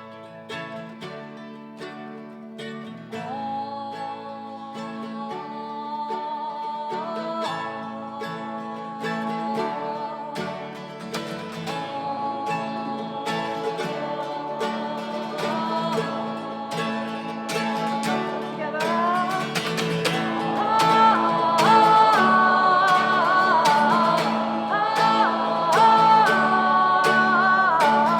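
Acoustic guitar strummed in a steady rhythm while voices sing a wordless vocal part, growing fuller and louder about two-thirds of the way through.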